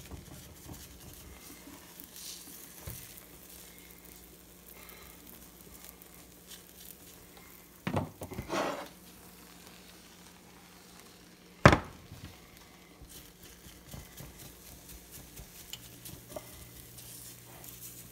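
Beaten egg for an omelette sizzling faintly in a non-stick frying pan, with a silicone spatula scraping around the pan now and then. About two-thirds of the way through comes one sharp knock, the loudest sound.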